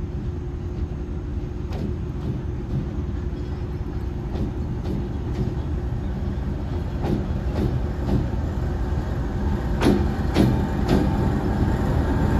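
A slow-moving train rolling along the track, its wheels clicking over rail joints in small groups of clicks about half a second apart, over a low steady rumble. The clicks grow louder toward the end as the train comes closer.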